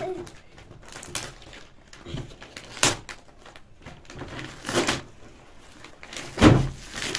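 Gift wrapping paper being torn and crumpled off a cardboard toy box, in a series of short rips one to two seconds apart, the loudest near the end.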